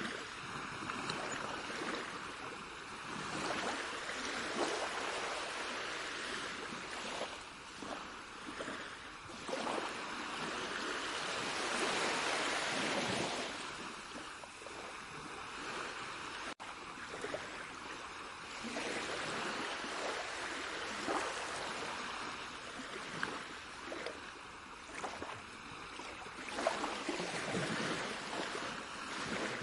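Rushing water, a steady hiss of surf or stream that swells and eases every few seconds, with a momentary dropout a little past halfway.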